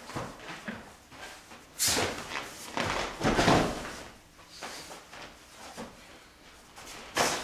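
Grapplers' bodies hitting and scuffling on gym mats during takedowns: a few sudden thuds, the loudest about two and three and a half seconds in and another near the end, with rustling of jackets and feet between.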